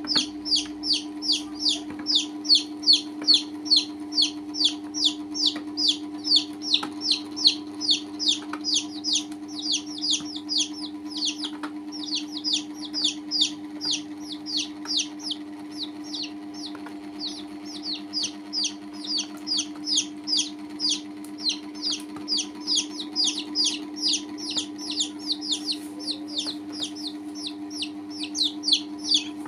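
Baby chicks peeping without pause, a stream of shrill peeps at about three a second, each falling in pitch. A steady low hum runs underneath.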